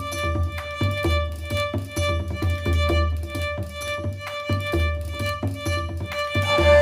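Background music with a steady beat under a held, sustained melody line.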